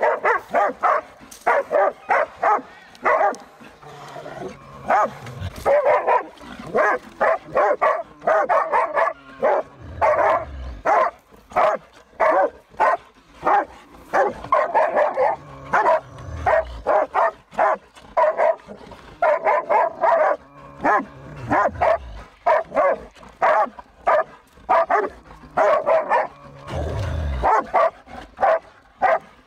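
Pig-hunting dog bay-barking at a wild boar held up in a cave: rapid barks, several a second, without let-up.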